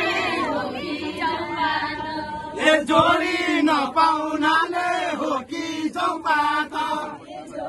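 Group of voices singing a Deuda, the Far-western Nepali folk song, together in a chant-like unison.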